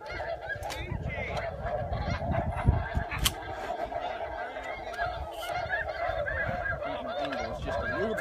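A large flock of geese honking, many calls overlapping into a steady chorus, with a single sharp knock about three seconds in.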